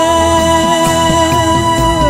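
Lingala gospel music: an instrumental passage with one long note held steady over the band's lower moving notes.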